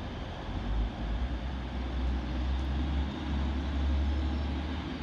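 TransPennine Express train pulling out of the station under power, a low rumble that builds about a second in and holds steady, over the hum of a large station.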